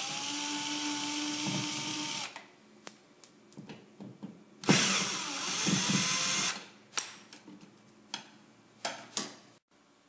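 Cordless drill-driver spinning as it backs the screws out of a switch wall plate, in two runs of about two seconds each: one at the start and one about halfway through. A few light clicks come between and after the runs.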